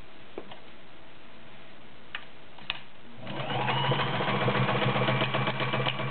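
A few light clicks, then about three seconds in the Kenmore 1229 sewing machine starts up and sews steadily: a motor hum with fast, even needle stitching.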